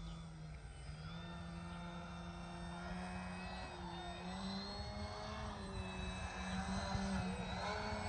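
QQ Cap 232EX RC aerobatic model plane in flight, its electric motor and propeller making a steady buzzing drone. The pitch wavers and steps up a little partway through, and the drone grows louder near the end as the plane comes closer.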